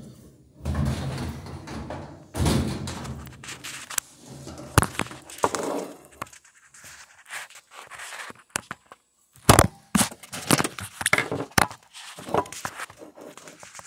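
Thunks and sharp knocks with stretches of scraping noise as a top-load washing machine is shifted and handled. The knocks come in a cluster near the end.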